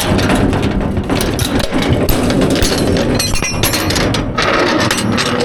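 Steel cattle gates and chute clanking and rattling, with a dense burst of rattling a little past three seconds in, over a steady engine running.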